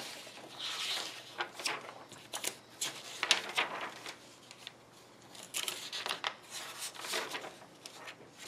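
Paper pages of a model kit's instruction booklet being flipped back, rustling and crackling in several spells with a quieter pause about halfway.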